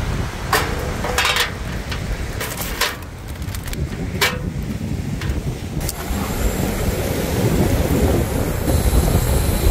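A few clanks of a stainless steel grate and charcoal briquettes being set into a metal grill box, then a handheld gas torch hissing steadily from about six seconds in as it lights a briquette. Wind rumbles on the microphone throughout.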